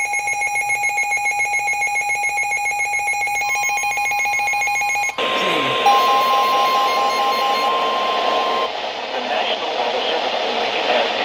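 Emergency Alert System attention tones received over the radio: a steady, pulsing alarm tone, then from about five seconds in a single steady alert tone over loud radio hiss and static. The tone stops near nine seconds, leaving the static.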